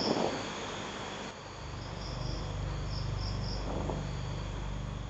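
Crickets chirping in short high trills over a low steady hum that sets in about a second and a half in. A louder noise dies away in the first moment.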